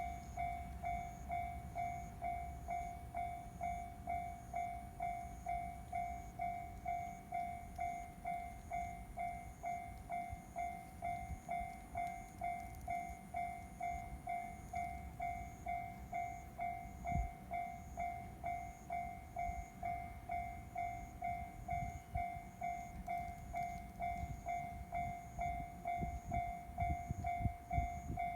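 Japanese railway level-crossing alarm ringing its repeated electronic 'kan-kan' tone, about one and a half to two strikes a second, the signal that a train is approaching. A low rumble runs beneath it and grows louder near the end.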